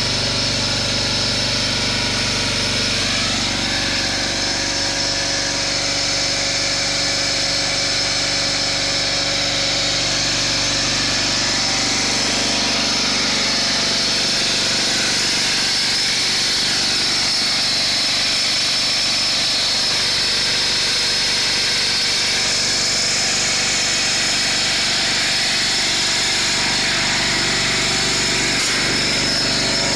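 Bobcat 440B skid-steer loader's engine idling steadily, heard close to the engine compartment.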